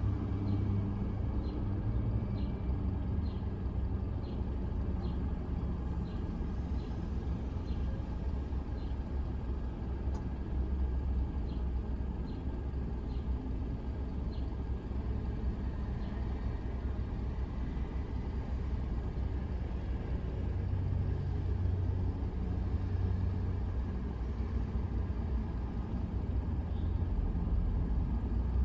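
Low, steady rumble of an idling car and the traffic around it, heard from inside the car's cabin. A light, regular ticking runs about twice a second and stops about halfway through.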